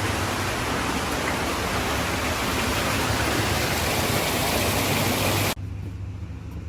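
Steady rush of flowing water. It cuts off suddenly about five and a half seconds in, leaving a much quieter low engine hum.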